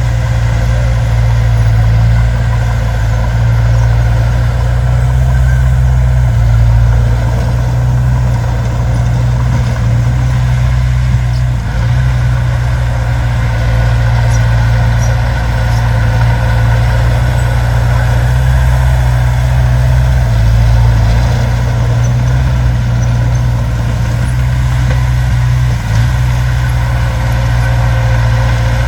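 Heavy earthmoving machine's engine running steadily at a deep, loud rumble.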